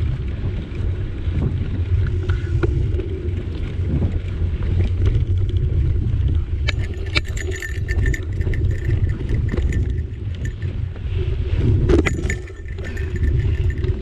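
Mountain bike rolling over a dirt singletrack, heard from a bike-mounted camera: a steady heavy rumble of wind and trail vibration on the microphone, with bursts of rattling and clicking from the bike over rough ground about halfway through and again near the end.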